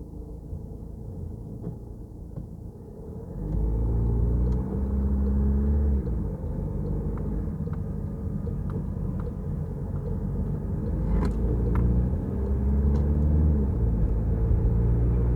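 Peugeot Rifter driving on a rain-wet road with a steady low rumble of engine and tyres. The engine pulls harder about three and a half seconds in, then rises and eases off twice, with a few sharp clicks near the end.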